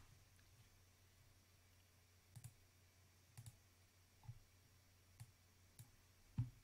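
Faint computer mouse clicks, several in quick pairs, about once a second, against near silence.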